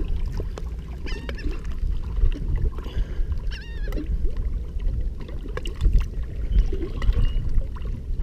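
Lake water sloshing and lapping at the side of a boat and around a hand held in the water as a largemouth bass is eased back in for release, under a steady low rumble of wind on the microphone.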